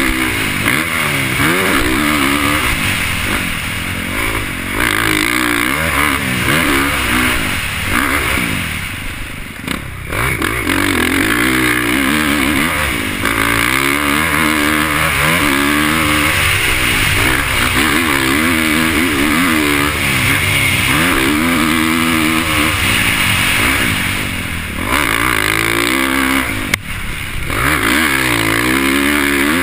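Motocross dirt bike engine revving hard on the track, its pitch climbing and dropping over and over as the rider works the throttle and gears. Twice it falls away briefly as the throttle is closed, with steady wind hiss over it.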